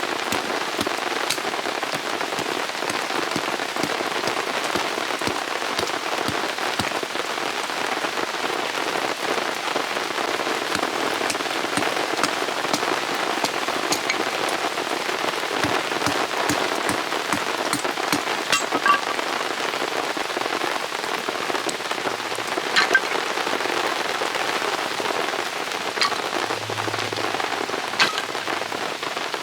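Steady rain falling, an even hiss of drops with a few sharper, louder drop hits in the second half.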